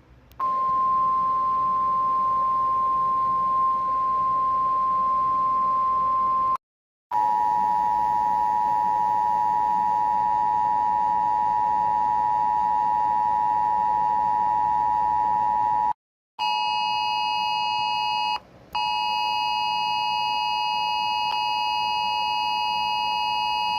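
Emergency Alert System alarm tones played one after another. First comes a single steady tone for about six seconds. Then a steady two-note tone runs for about nine seconds, and a harsher two-note tone with a brief break shortly after it starts runs to the end.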